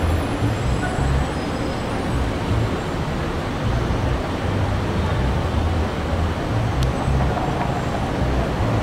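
Steady city street traffic noise, mostly a low rumble, as a TTC streetcar rolls away from the stop.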